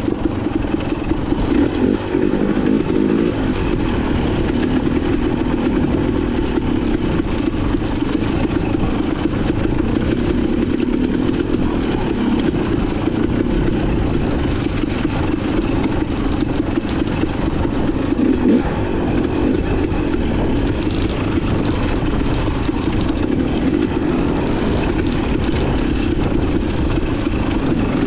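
Trail motorcycle engine running steadily as the bike is ridden along a trail, its pitch wavering a little with the throttle.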